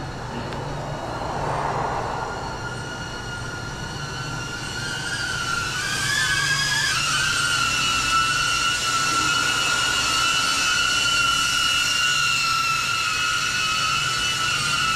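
DJI Avata FPV drone's ducted propellers whining in flight: a steady high two-note hum that grows louder about five seconds in, wavers and dips in pitch as the drone manoeuvres a second or so later, then holds steady.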